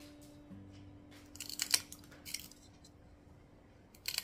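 Glass nippers snipping small chips off a green stained glass strip to shape the points of a leaf. A few crisp snaps come about a second and a half in, another just after two seconds, and one near the end.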